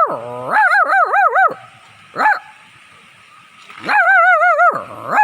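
Dog-like howling and whining calls. Each call wavers up and down in pitch and ends with a steep slide down: a wavering call about half a second to a second and a half in, a short yelp near two seconds, and a longer wavering call from about four seconds in, with the next one starting just at the end.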